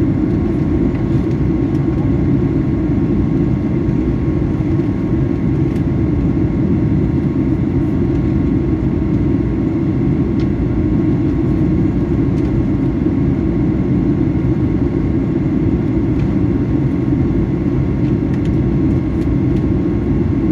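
Steady cabin noise of a Boeing 737-800 airliner heard from a window seat over the wing: a constant low rush of airflow and engine drone, with a faint steady hum above it. The aircraft is preparing to descend.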